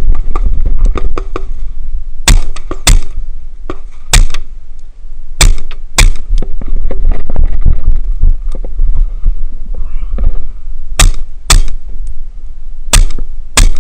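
Suppressed shots from a Colt 10.3-inch 5.56 SBR fitted with an AAC 556SD suppressor. There are about nine shots, mostly fired in pairs about half a second apart, with a pause of about five seconds in the middle, over a constant low rumble.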